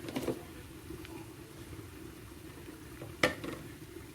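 Pot of polau rice cooking quietly on the stove with a low steady hum, while food colouring is added. There are light utensil clinks at the start and one sharp knock against the pot about three seconds in.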